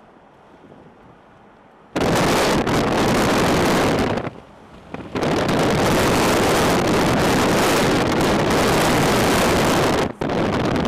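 Wind buffeting the microphone from a moving car, cutting in suddenly about two seconds in, dropping away briefly near the middle and again near the end. Before it, only a faint low rumble of the car.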